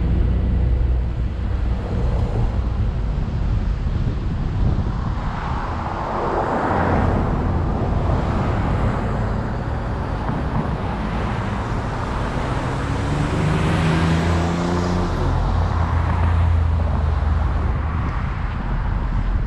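Traffic and road noise heard from a car driving through city streets: steady tyre and engine rumble, with two swells as vehicles pass, and an engine speeding up about two-thirds of the way through.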